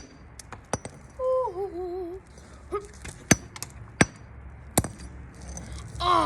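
Sharp clinking knocks at irregular spacing, about eight of them, from toy figures being struck and smashed. A short wavering hum from a person about a second in.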